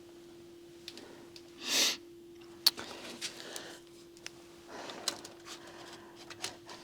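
Quiet bench handling: scattered small clicks and taps, with one breath about two seconds in, over a faint steady hum.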